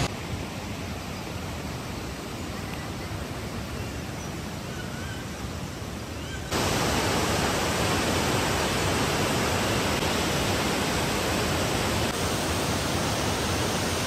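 Waterfall's rushing water, a steady even hiss that jumps sharply louder about six and a half seconds in.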